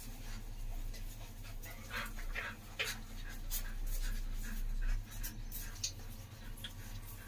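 Doberman Pinscher bitch panting in irregular breaths while nursing her litter, with a few short high squeaks from the puppies near the end.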